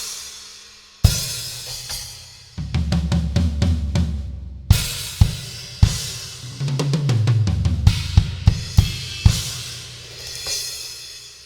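Arborea Dragon series cymbals played on a drum kit: cymbal crashes ringing out and decaying, with quick drum fills between them, one fill stepping down in pitch.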